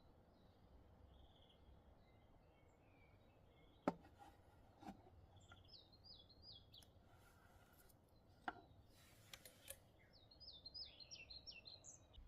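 Faint birds chirping: a short run of quick, high repeated chirps about six seconds in and another near the end. Three light clicks come about four, five and eight and a half seconds in.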